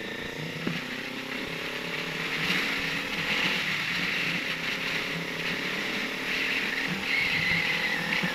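Sport motorcycle engine accelerating under way. Its pitch climbs steadily, drops once about three and a half seconds in as it shifts up, then climbs again. Wind rush builds as speed rises.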